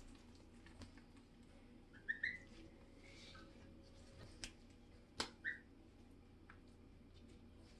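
Goslings peeping, a few short high calls, with two sharp clicks near the middle.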